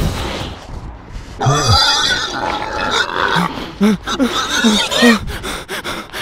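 Music fades out, then a quick run of short pig-like grunts and oinks, each a brief call that bends up and down, comes about twice a second from about a second and a half in until near the end.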